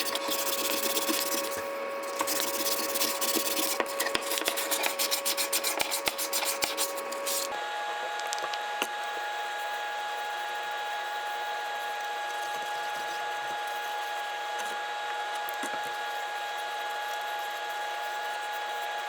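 A small power tool motor running at a steady pitch while abrasive rubs and scrapes the wooden scoop, with a scratchy rasping texture. About seven and a half seconds in, the pitch jumps higher and stays steady.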